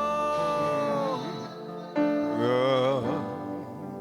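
Slow gospel worship music: a voice holds a long note with vibrato over sustained keyboard chords. A new chord comes in about two seconds in, followed by a short wavering vocal run.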